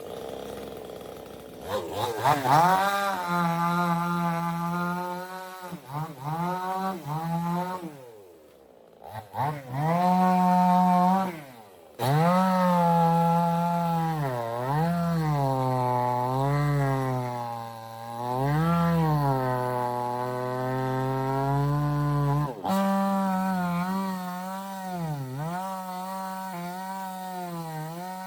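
Two-stroke chainsaw running at high revs and cutting wood, its engine note sagging again and again as the chain bites and picking back up. It drops almost to idle about eight seconds in, then revs up, and the sound jumps abruptly twice.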